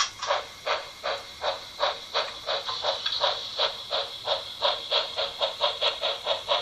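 Märklin H0 model steam locomotive's sound module playing steam exhaust chuffs through its small speaker as the loco runs. The chuffs are hissy and come about three a second, quickening to about four.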